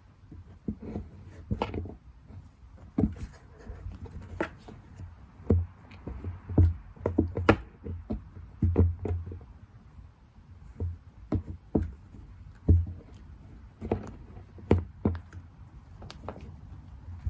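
Irregular knocks, taps and scuffs on a cardboard box, dull thuds coming in clusters with short gaps, as a cat moves about and plays in and around it.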